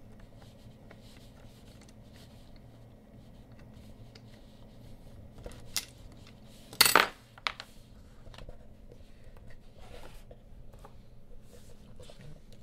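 Small metal parts of a motorized curtain track clicking and rattling as they are handled, with one loud metallic clack about seven seconds in. A faint steady hum runs underneath.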